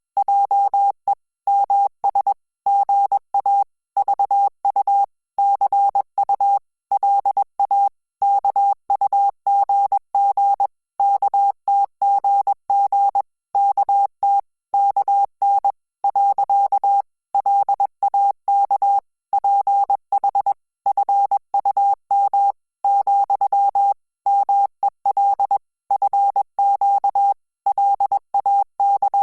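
Morse code in a single steady beep tone, keyed on and off in short dots and longer dashes with gaps between characters, sending Korean (Hangul) text at 20 words per minute.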